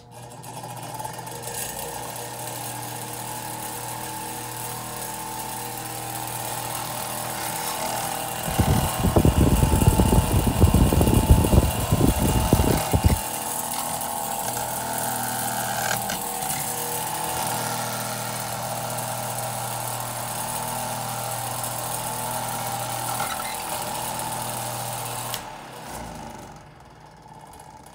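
Antique Manning Bowman 8-inch desk fan running, very loud, with a steady motor hum and the whoosh of its blade. The blade is badly bent and off balance, so the whole fan vibrates. A much louder low rumble lasts about five seconds in the middle. Near the end the fan is switched off and spins down.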